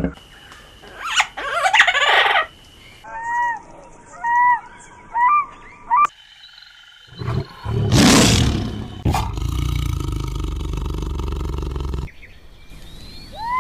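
Wild animal calls in a run: two loud, harsh roars, the second trailing into a few seconds of steady low rumble. Between them, and again near the end, a bird gives a series of short, arched call notes.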